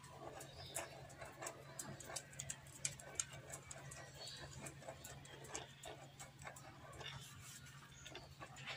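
Small cordless rotary tool running with a faint steady hum, its fine bit ticking and scratching irregularly against a plastic chair as it picks dirt out of small pits that sandpaper cannot reach.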